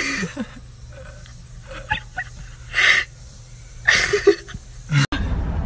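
A chimpanzee huffing close to the microphone: four short, breathy bursts with quiet between them. Near the end it cuts to a steady low rumble inside a moving car.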